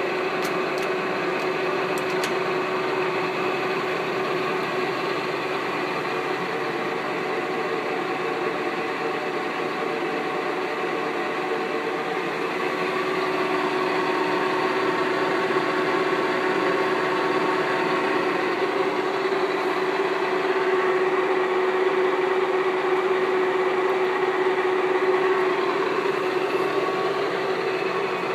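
Harrison M500 centre lathe running with its chuck spinning: a steady mechanical hum with a constant tone, growing a little louder about halfway through.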